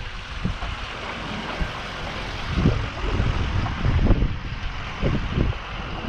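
Strong wind buffeting the microphone in irregular gusts, over a steady rushing hiss.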